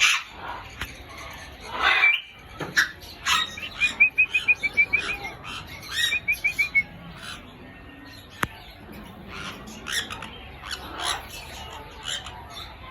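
Grey parrot calling: short squawks and whistles, with two quick runs of rapidly repeated chirps about four seconds in and just after six seconds. A single sharp click comes near the middle.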